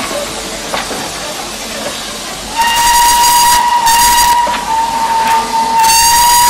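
Steam hiss from a departing steam train. About two and a half seconds in, the steam locomotive's whistle starts and holds one long, steady high note, wavering briefly twice.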